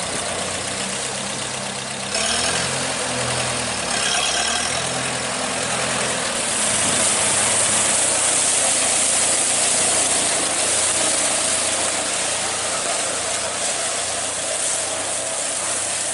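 Tractor engine running, its pitch and level rising about two seconds in as it picks up revs. A strong high hiss joins about six seconds in.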